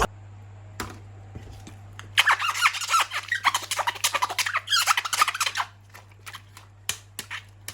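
Hands handling a plastic toy and its packaging: plastic crinkling, rubbing and short squeaks with clicks, busiest from about two seconds in to about five and a half seconds, with a few isolated clicks afterwards.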